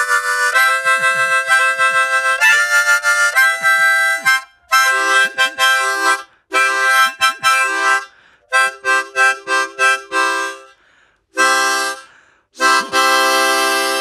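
Instrumental music: chords in short phrases with brief breaks, ending on a long held chord that fades.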